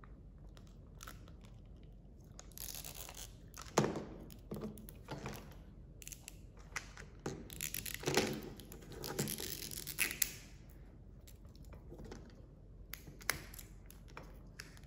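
Plastic wrapping being torn and peeled off a Mini Brands capsule ball by hand: irregular crinkling and tearing with scattered sharp clicks, starting a couple of seconds in.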